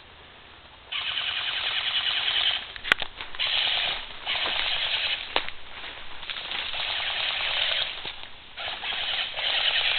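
Airsoft electric guns firing full-auto in repeated long bursts, starting about a second in, with a couple of sharp single cracks between bursts.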